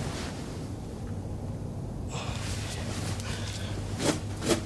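A person breathing and gasping, with two short, sharp gasps near the end, over a low steady hum.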